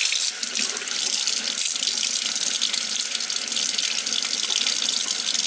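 Kitchen faucet running steadily into a stainless steel sink, left on so the hot water can come through.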